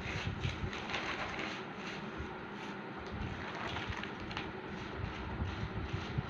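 Dry dyed rice grains being mixed by hand on newspaper: a steady scratchy rustle of grains and paper, with louder crinkling about a second in and again around four seconds in, when the newspaper is lifted and folded.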